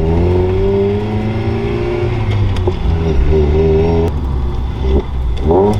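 Mazda ND Miata's four-cylinder engine with an aftermarket HKS exhaust and Hooker header, heard from inside the cabin, pulling up through the gears. The engine note rises, breaks off at gear changes about two and four seconds in, and rises sharply in a quick rev near the end.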